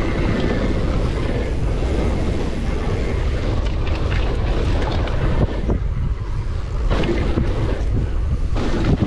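Heavy wind rumble on the microphone of a downhill mountain bike ridden fast on a dirt trail. Sharp knocks and rattles from the bike going over bumps come through several times, the clearest about four, seven and eight and a half seconds in.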